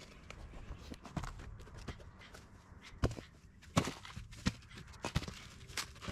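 Irregular knocks and clatter of cut firewood pieces being handled while the work area is cleared, with sharp wooden clacks about every half second and the loudest ones about three and four seconds in.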